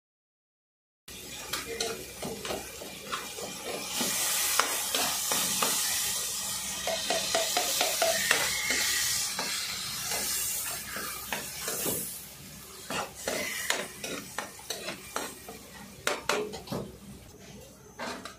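Steel ladle stirring and scraping chicken and tomato puree in a hot metal wok. The frying sizzle starts about a second in and is loudest in the middle, with frequent clicks and scrapes of metal on metal.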